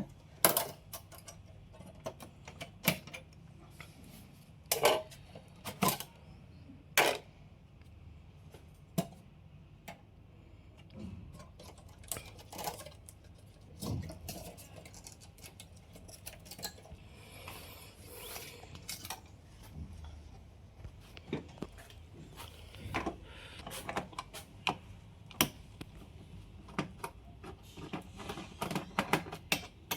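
Irregular clicks, clacks and knocks of metal and plastic parts being handled inside an open Dell PowerEdge R730 server chassis, as the riser cards are unlatched and lifted out. The taps come singly and sparsely at first, then closer together near the end.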